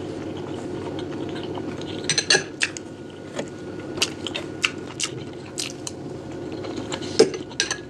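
Cutlery clinking and scraping against a plate: about a dozen sharp clicks, several in quick succession about two seconds in, over a steady low hum.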